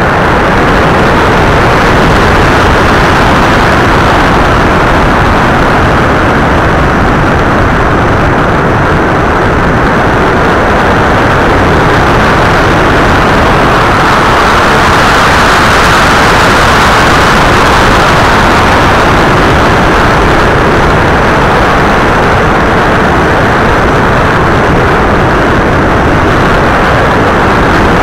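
Loud, steady rush of wind and propeller noise on the onboard camera's microphone of an FPV model aircraft in flight, swelling a little about halfway through.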